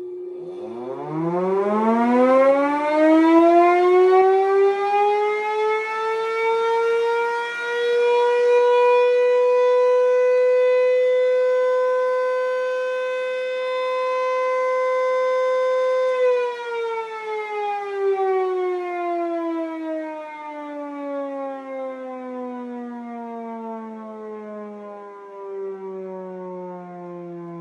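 MS-790 siren winding up from a low pitch to a steady single-tone wail over about eight seconds. It holds that pitch, then winds down with a steadily falling pitch from about sixteen seconds in.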